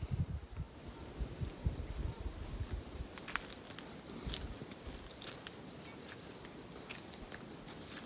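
An insect chirping steadily, short high chirps about two to three a second, with soft footsteps and handling noise on a dirt path, mostly in the first few seconds.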